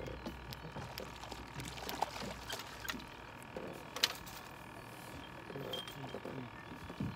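Light water splashing beside a small boat, with scattered clicks and knocks of fishing gear, as a hooked fish is brought alongside and netted.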